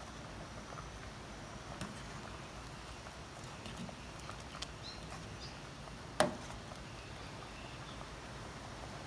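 Metal ladle stirring a simmering curry in a stainless steel pot, with light scraping and small clicks, and one sharp clink of the ladle against the pot about six seconds in.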